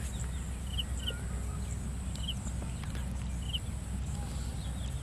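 A bird giving short, high chirps, four of them spaced about a second apart, over a steady low rumble.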